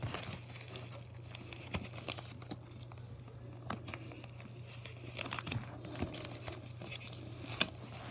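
Padded and plastic mailing envelopes rustling and crinkling as a hand rummages through a stacked pile of them, with scattered light taps and scrapes. A steady low hum runs underneath.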